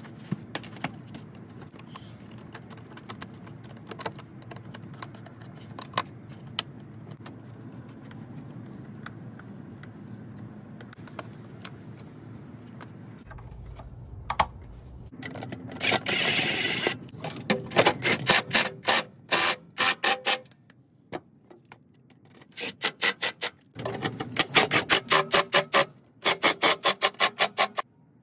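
Light clicks and rattles of parts being handled, then, from about halfway in, a cordless impact wrench hammering in several short bursts as it runs in the bolts of the truck's bottom plate.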